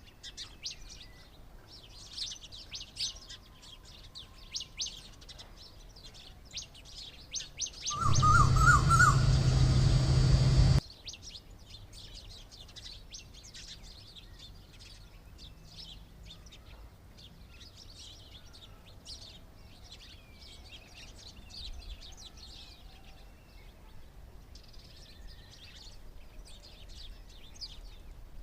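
Small birds chirping busily, with many quick, high chirps. About a third of the way in, a much louder, unidentified sound cuts in for about three seconds and stops abruptly.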